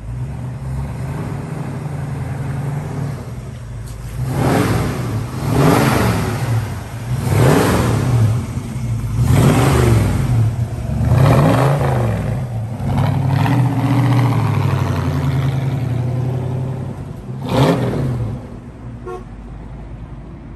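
1965 Mustang GT's 289 V8 idling and being blipped about six times in quick succession, each rev rising and falling back to idle, with one more short rev near the end before it settles quieter.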